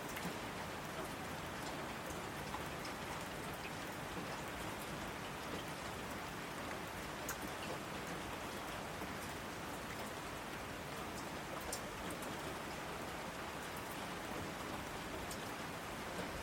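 Steady rain falling, an even hiss with scattered drops ticking sharply on a surface.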